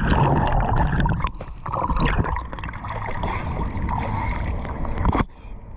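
Lake water splashing and sloshing close around a handheld action camera as it dips into and out of the water, with muffled gurgling, a hand splashing the surface and crackling drops. It cuts off suddenly about five seconds in.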